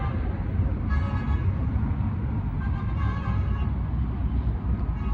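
Road traffic running steadily with a heavy low rumble, and short car horn toots about one second and three seconds in.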